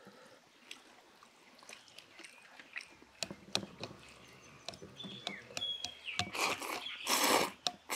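Wooden chopsticks tapping against steel bowls in scattered light clicks. Near the end, two loud bursts of noodles being slurped. A bird chirps a few high notes shortly before the slurping.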